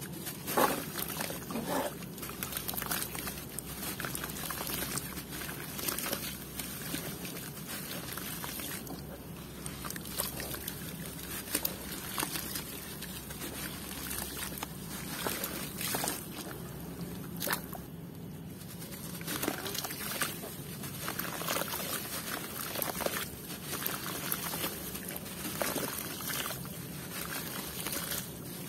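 Water sloshing and trickling in a plastic basin as hands squeeze and crumble a soaked lump of red dirt, with irregular wet crackles and splashes.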